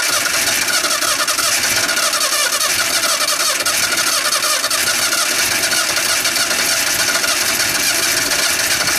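Pickup truck's engine cranked continuously on its starter, running on wood gas from a homemade gasifier with no gasoline, without catching.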